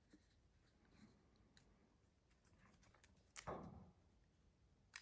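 Near silence with a few faint clicks and one brief handling sound about three and a half seconds in, from a stainless steel Leatherman Free P4 multi-tool being handled and its fold-out tools moved.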